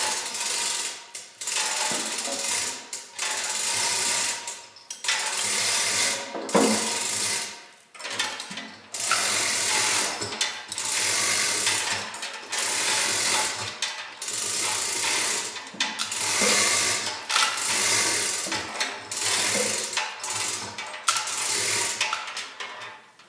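Hand-pulled chain hoist lifting a heavy lathe motor drive assembly: the chain rattles through the hoist and the pawl clicks in a run of pulls with short pauses between them.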